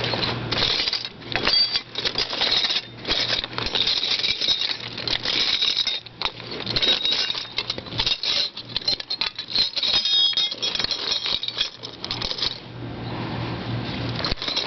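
Metal sockets clinking and rattling against each other as someone rummages through a tool case for the right size, a continuous jingling clatter of small metal pieces.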